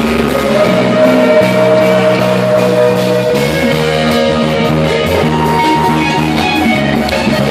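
Rock band playing live, with guitar and drums.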